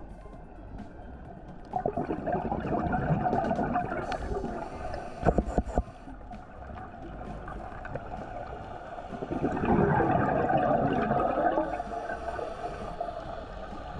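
Underwater scuba bubbles: a diver's regulator exhaust gurgling and bubbling in two long surges a few seconds apart, with a few sharp clicks between them.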